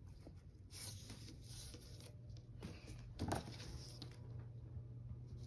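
Faint handling sounds of hands and a thin wooden stick on a tabletop: soft rustling in the first couple of seconds, then one light knock a little over three seconds in.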